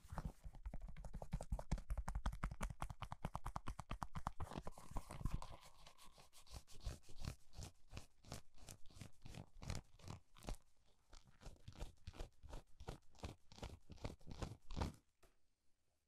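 Rubber toilet plunger cup tapped and pressed repeatedly on a wool blanket right beside the microphone, in fast even strokes with low thumps. After about four seconds the strokes turn slower and irregular, and they stop about a second before the end.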